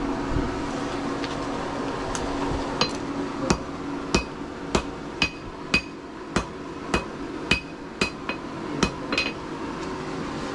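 Blacksmith's hammer striking metal on an anvil in a steady rhythm, a little under two blows a second, each blow with a short metallic ring. About a dozen blows start about two seconds in and stop near the end.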